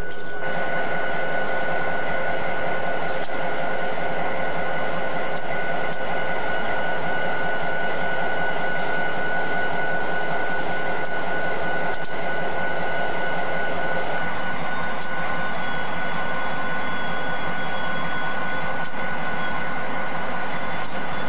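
Diesel-electric locomotives idling: a steady engine drone with a constant high tone over it and a few sharp clicks.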